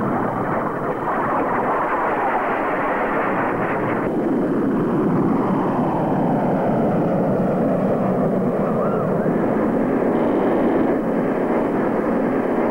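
Steel roller coaster train rushing along its track close by: a loud, steady roar of wheels on rail, with an abrupt change in the sound about four seconds in.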